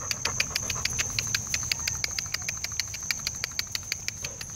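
Insects calling: a steady high trill with a fast, even ticking of about nine clicks a second laid over it, the ticking stopping near the end.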